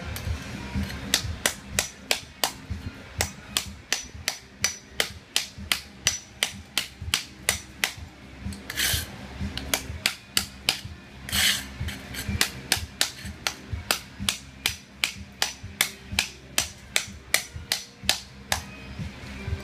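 Hammer blows in a steady rhythm, about two to three a second, chipping away ceramic tile, with a couple of longer scraping crunches near the middle.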